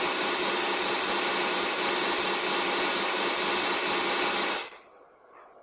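Loud, steady rushing noise from the artwork's documentation video, even and without any tone, like a hair dryer. It cuts off sharply near the end.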